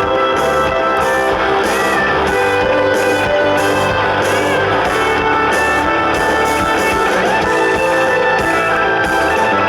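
Live rock band playing loud, with strummed electric guitars over a steady beat.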